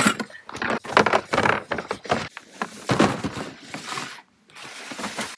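Camp cooking gear being packed into a hard plastic storage tote, and the tote then lifted and slid onto a pickup's tailgate: a run of clunks, knocks and scraping handling noises that quiet down near the end.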